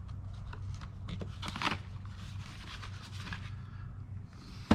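Items being handled and shuffled around in a storage box: scattered rustles, scrapes and light clicks, with a sharp knock near the end, over a steady low hum.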